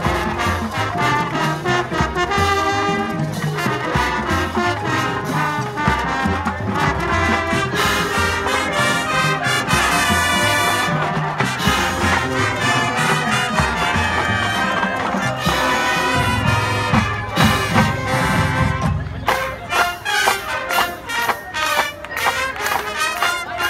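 High school marching band playing its field show: full brass over drums. Near the end the low, sustained parts drop away and the music turns to short, clipped rhythmic hits.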